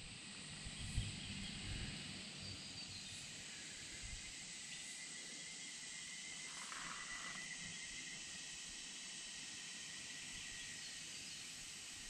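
Faint rural outdoor ambience dominated by a steady high insect drone, with a short higher call about two-thirds of the way through. A few soft low knocks, the loudest about a second in, sit under it in the first few seconds.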